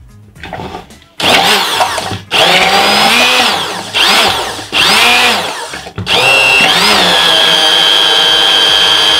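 Immersion blender running in a plastic jug of chocolate and a little hot milk, starting the emulsion of a ganache. It starts about a second in with several short bursts whose pitch rises and falls, then runs steadily from about six seconds in.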